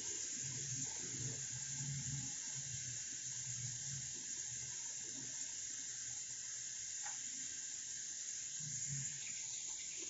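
Sliced onions frying in ghee in a pot, a steady, quiet sizzle.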